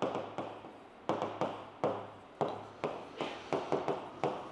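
Stylus pen writing by hand on the glass of an interactive touchscreen board: a string of irregular sharp taps, each followed by a short scratchy stroke.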